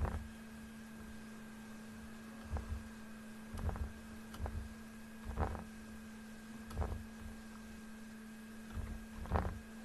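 Faint clicks of a computer mouse, singly or in quick pairs, every second or so, over a steady electrical hum.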